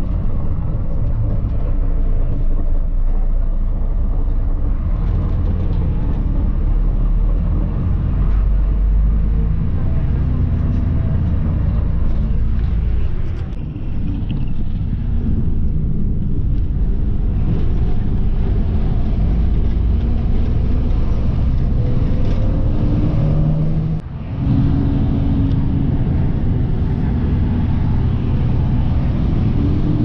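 Bus engine running with heavy road rumble as the bus drives along. The engine note rises in pitch several times as it picks up speed, with two brief lulls, one about halfway through and one later.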